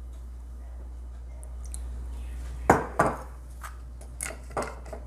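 Kitchen clatter: two sharp knocks a little past halfway, then several lighter clinks of a metal spoon against a ceramic bowl and a sauce bottle being set on a stone countertop.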